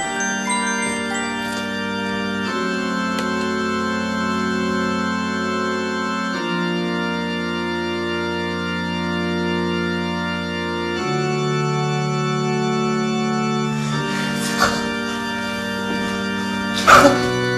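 Background music: slow, sustained organ chords, each held for several seconds before the next, with a sudden sharp hit near the end.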